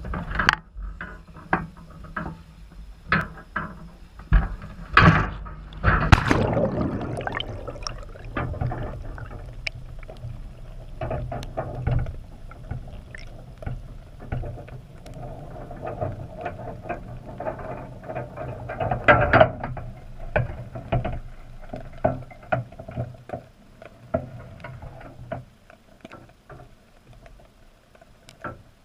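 Wire box-style crab trap clanking and rattling as it is handled, with a loud splash about six seconds in as it goes into the water. Then muffled underwater rumbling and scattered clicks through the GoPro's waterproof housing, dying down near the end.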